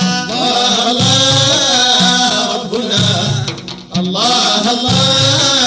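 Sudanese Sufi madeeh, a praise song for the Prophet, sung by voices over a low, steady drum beat of about one stroke a second.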